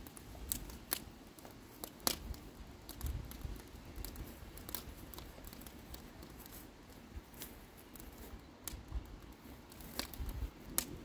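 Wood fire crackling in a perforated steel drum fire pit: irregular sharp pops and snaps over a low rumble.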